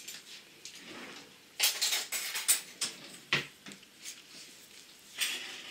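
Bowls being handled: a small glass bowl knocks and scrapes against a wooden mixing bowl as plain yogurt is tipped in. The clinks and scrapes come in short irregular clusters, with one sharp knock about three seconds in.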